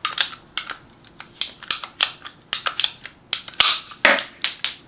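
Handheld PVC pipe cutter squeezed through half-inch PVC pipe: a quick series of sharp clicks, about three a second, with a couple of louder snaps near the end as the cut goes through.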